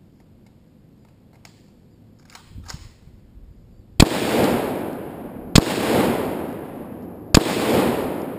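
Three rifle shots, about a second and a half apart, fired at a soft body-armour vest on a dirt berm; each sharp crack is followed by a long rolling echo.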